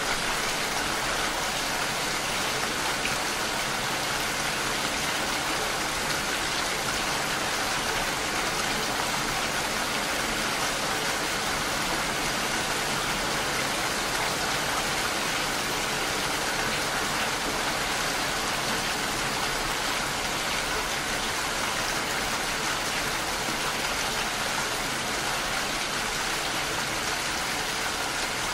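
Steady rain falling, an even, unbroken hiss with no let-up.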